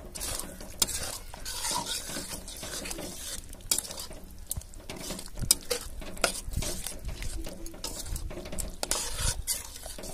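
Metal spatula stirring and scraping thick masala in an aluminium kadai, irregular metal-on-metal scrapes and clicks over the sizzle of the masala frying on the heat.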